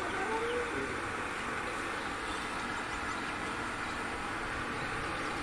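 Steady background noise with no distinct event, and a faint short call near the start.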